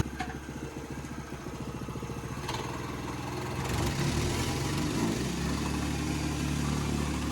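Small gasoline engine of a rented tamper running steadily at idle, getting a little louder about four to five seconds in.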